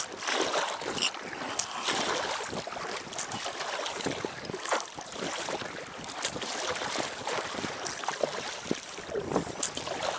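Wind buffeting the microphone over choppy lake water that laps and splashes against an inflatable packraft's tubes, with scattered small splashes and knocks.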